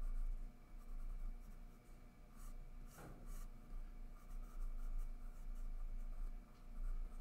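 Graphite pencil drawing on sketchpad paper: faint scratching strokes of the lead across the page as an eye outline is sketched.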